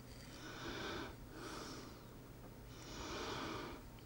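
A person breathing audibly through the nose, three soft breaths of about a second each.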